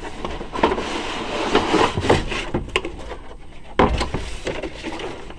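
Cardboard box being opened and a cardboard packing tray slid out of it, rustling and scraping, with a thump about four seconds in as the tray is set down on the table.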